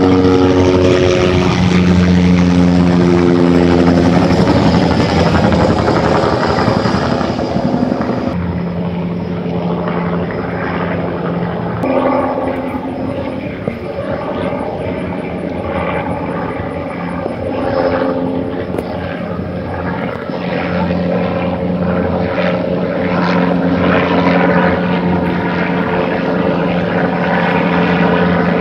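Police helicopter with a two-blade main rotor flying low overhead: a loud, steady drone of rotor and engine whose pitch shifts several times as it circles and passes.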